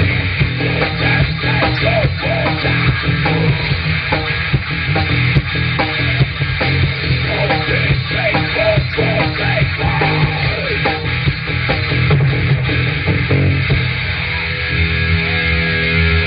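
A live rock band playing loud, with guitars and drums driving a steady beat. Near the end the guitars settle into held, ringing notes.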